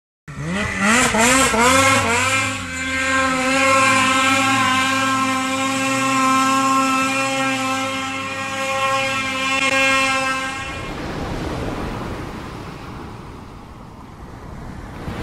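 Toy remote-controlled snowmobile's motor revving, a "brrraaaap" that rises and falls a few times in the first two seconds, then holds one steady pitch for about eight seconds before it stops. The machine is stuck, unable to climb a snowy slope. A windy hiss follows near the end.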